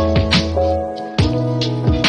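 Background music with held chords over a bass line and drum hits; the bass note changes about a second in.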